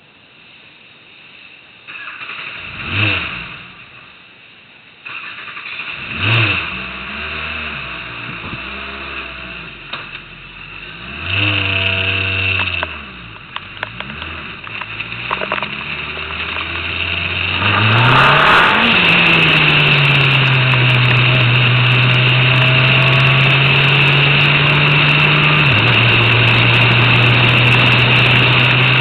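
Formula Renault 2.0 single-seater's four-cylinder engine heard from an onboard camera on the car. It is revved in short blips, rising and falling, then pulls away with a rising note and settles into a steady engine speed, with one upshift near the end.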